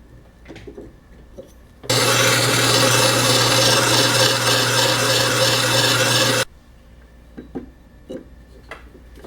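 A power tool motor running for about four and a half seconds, starting and stopping abruptly, with a steady low hum under a loud cutting hiss. Short knocks and clicks of hand work with the parts come before and after it.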